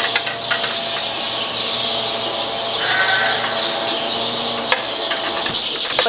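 Sheep bleating in a barn, with a few sharp metallic clicks of a wrench on the bolts of a steel sheep chute.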